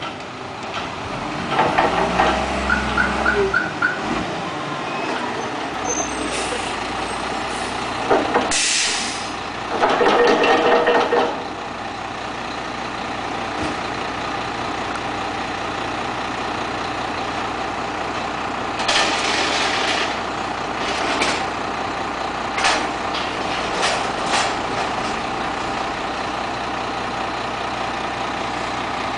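Waste Management front-loader garbage truck with a Wittke body running as it drives up and stops, its diesel engine then idling steadily. Its air brakes hiss about nine seconds in and again near twenty seconds, with a louder stretch of engine noise around ten seconds.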